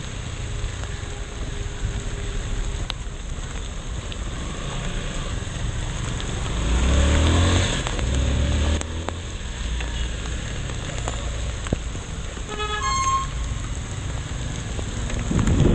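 Motorcycle running in slow, wet traffic with steady engine and road noise, swelling louder for a couple of seconds about seven seconds in. A short vehicle horn toot sounds about 13 seconds in.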